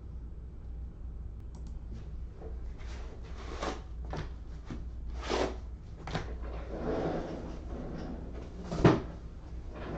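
Scattered knocks and clicks of objects being handled, with one louder thump about nine seconds in, over a steady low hum.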